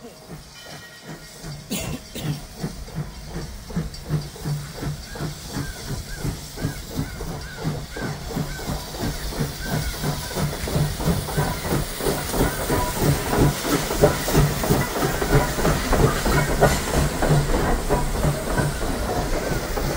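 Steam locomotive No. 2023 chuffing with steam hissing, an even rhythm of exhaust beats that grows steadily louder as the engine approaches and passes close by.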